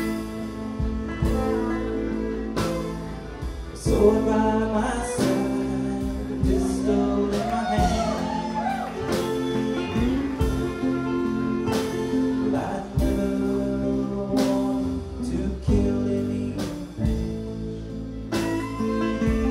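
Live bluegrass band playing, with banjo and acoustic guitar picking and a voice singing, most clearly through the middle.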